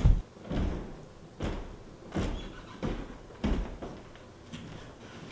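Footsteps thudding on a wooden floor, about one step every three-quarters of a second, growing softer after about four seconds.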